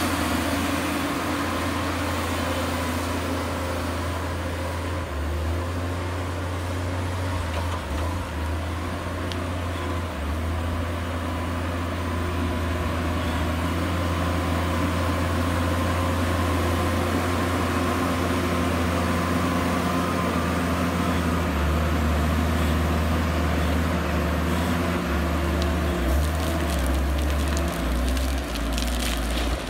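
New Holland W170 TC wheel loader's diesel engine running with a steady low hum as the loader drives and works, with the engine note shifting up and down in the last several seconds.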